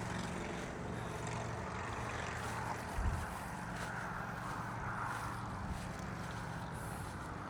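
A steady engine drone with an even low hum, easing off after a few seconds, and a single low thump about three seconds in.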